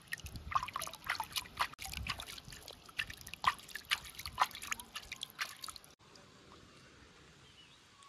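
A hand splashing and scooping water in a shallow rocky stream: a quick, irregular run of splashes and drips that stops suddenly about six seconds in.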